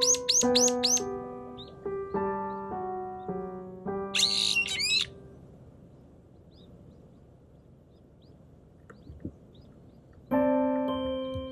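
Gentle piano music, with a loud, harsh brown-eared bulbul call about four seconds in. The music then stops for several seconds, leaving faint short bird chirps, and comes back near the end.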